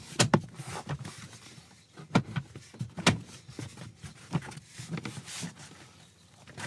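Plastic lower dashboard trim panel of a Peugeot Partner van being pressed home by hand, its clips snapping into place with several sharp clicks and knocks spread over a few seconds.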